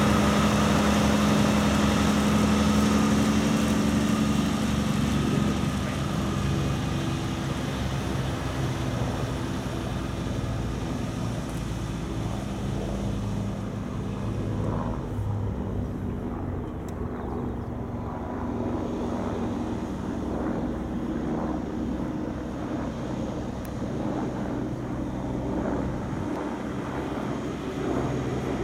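Heavy truck's diesel engine running as the truck and trailer unit pulls away, loudest at first and fading after about five seconds to a steady low drone as it drives off and circles back.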